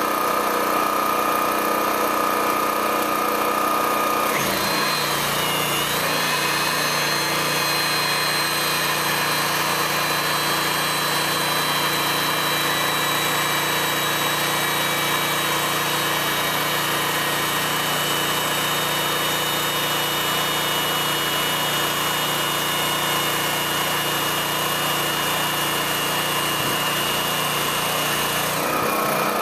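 Hydraulic pump running steadily, driving a post-tensioning stressing jack as its rams extend to pull the steel slab cable toward about 5,300 PSI. Its note changes about four seconds in and changes back near the end.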